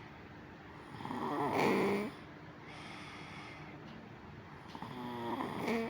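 A sleeping person snoring loudly: two snores about four seconds apart, each cutting off sharply, with quieter breathing between. It is the obstructed snoring of someone whose tonsils and adenoids are due to be removed.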